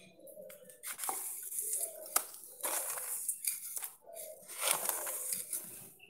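Plastic packet of bird-feed pellets crinkling and rustling as it is handled, in irregular bursts, with a sharp click about two seconds in.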